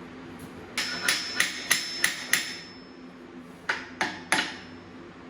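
Hammer striking metal: six quick blows at about three a second with a faint ring, then after a pause three more.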